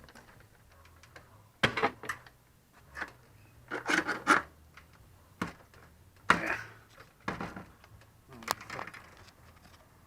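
Irregular knocks, bangs and clatter of wood as an old bathroom vanity is pried loose and broken apart by hand, about eight separate impacts with quiet between them.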